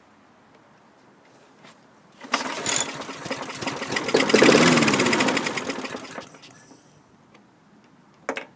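190cc Briggs & Stratton single-cylinder mower engine pull-started on starting fluid: it fires about two seconds in, runs a few seconds, then slows and dies out as the fluid burns off. A short sharp noise follows near the end.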